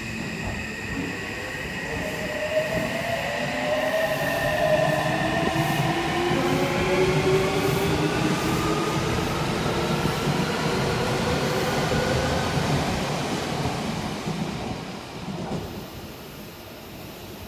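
Odakyu 30000-series EXEα Romancecar electric train rolling slowly along the platform over a wheel rumble, its motors giving a whine that rises in pitch. The sound dies away near the end as the train comes almost to a stop.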